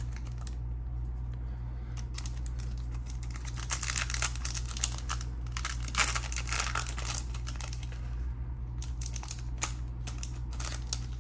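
Foil trading-card pack wrapper crinkling in bursts of sharp crackles as it is handled and torn open, over a steady low hum.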